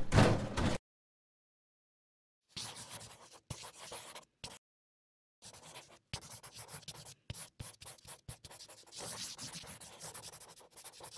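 A felt-tip marker scratching across a white board in short strokes and bursts as letters are written, with a pause between lines. In the first second, the tail of a louder crash-like sound effect that cuts off.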